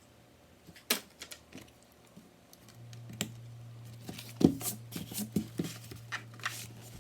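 Light, irregular clicks and taps of small laptop parts being handled during reassembly. A steady low hum comes in about three seconds in.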